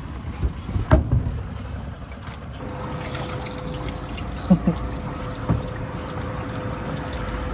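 Water trickling and splashing, with a few light knocks. A faint steady hum starts about three seconds in.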